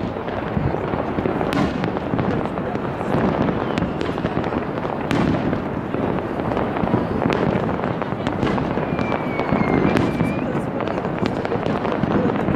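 A massed fireworks display going off across a city: a continuous dense crackle and popping of many shells at once, with sharper bangs standing out every second or so. A thin short whistle comes about two-thirds of the way in.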